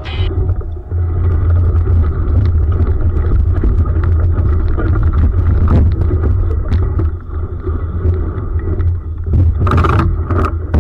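Steady low wind rumble on the microphone with water sloshing, as aboard a sailing dinghy, and a few sharp knocks near the end.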